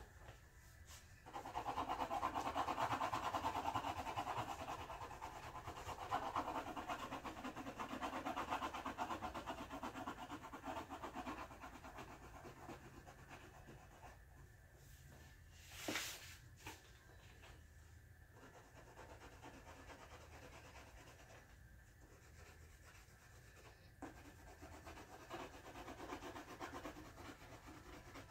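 A pencil rubbing quickly back and forth on a paper colouring page as colour is filled in: a dense scratching for about ten seconds, then softer, more broken strokes, with one short sharp noise a little past halfway.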